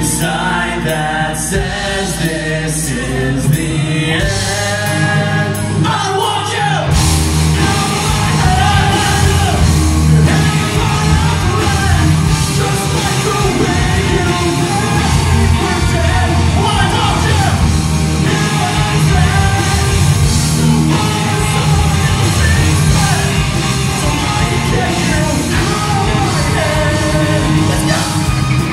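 Live rock band playing electric guitars and drums, with a male singer on lead vocals in a large hall; the band comes in fuller about seven seconds in.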